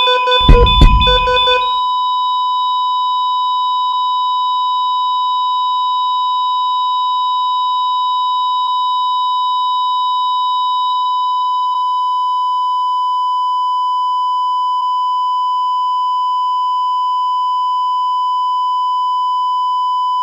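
Hospital patient monitor's flatline alarm: one unbroken high-pitched tone, the sign that the heart trace has gone flat (no heartbeat). In the first two seconds it is preceded by quick patterned alarm beeps and a deep thud.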